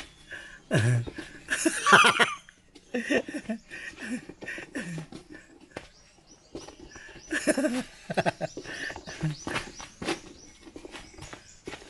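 A puppy making short pitched cries while it plays, among scuffs and taps of a coconut pushed and kicked over bare dirt.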